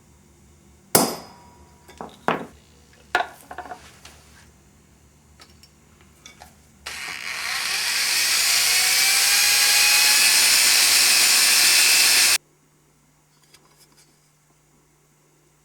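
A few sharp metal knocks, then an electric drill biting into a metal thermowell cap for about five seconds, a loud, high-pitched grinding with a faint whine, before it stops abruptly. The hole is hard going.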